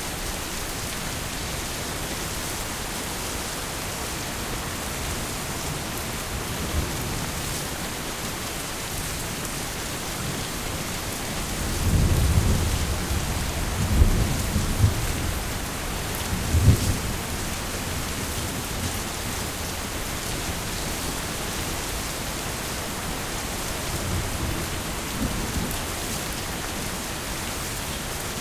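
Heavy rain falling steadily. A roll of thunder rumbles in about twelve seconds in and lasts several seconds, with two sharper cracks in it, and a fainter rumble follows near the end.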